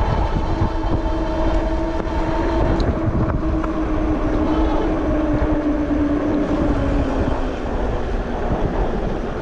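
Electric bike's hub motor whining steadily as it rides, its pitch easing down about two-thirds of the way through, over a low rumble of wind on the microphone and tyres on pavement.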